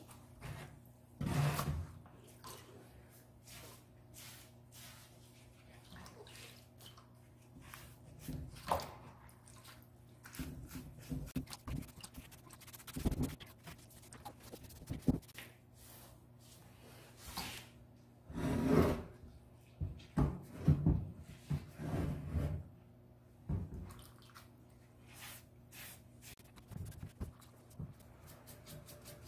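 Wet sponge scrubbing a salt-glazed ceramic piece, with dripping water and scattered knocks as the pot and water bowl are handled, the loudest cluster about two-thirds of the way through. A faint steady low hum runs underneath.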